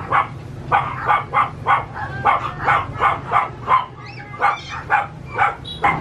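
Caged puppies yapping over and over, about three short barks a second. A high, wavering whine breaks in a little past the middle before the yapping resumes.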